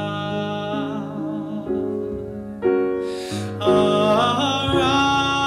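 Male soloist singing a held note with vibrato over church piano accompaniment, the piano chords moving on beneath it; after a brief gap the voice comes in again over a fuller chord in the second half.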